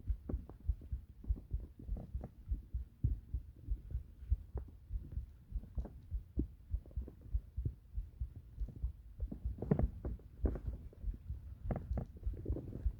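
Human heartbeat heard close up through the body: a steady run of soft, low thumps. A few short, sharper stomach gurgles break in over the last few seconds.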